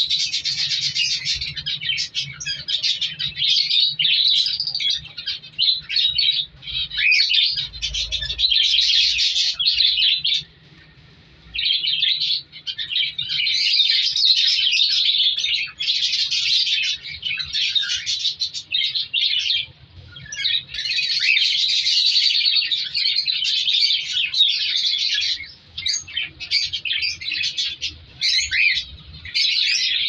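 Budgerigars chattering: a dense, steady stream of high chirps and warbles that breaks off for about a second about a third of the way in.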